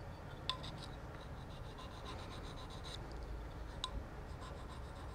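Faint scraping of a steel cabinet scraper blade's corner rubbed in short strokes on a diamond sharpening plate, rounding the corner over so it won't dig into the wood. There are two light clicks, about half a second in and near four seconds.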